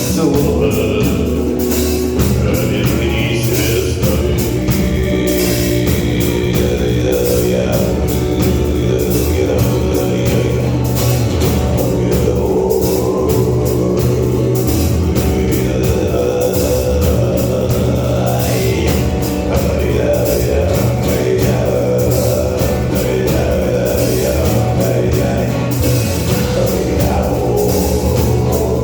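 Live rock band playing, with drums, guitars and a melodic lead line.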